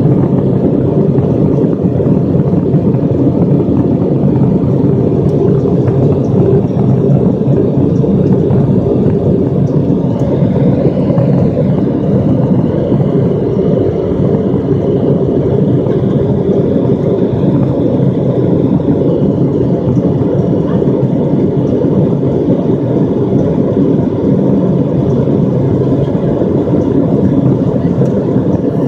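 Steady jet engine and airflow noise heard inside an airliner cabin during departure. A faint high whine rises and falls about ten seconds in.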